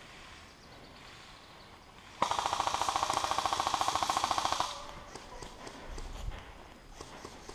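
Airsoft electric rifle firing one full-auto burst of about two and a half seconds, starting about two seconds in: a rapid, even clatter of shots that stops abruptly.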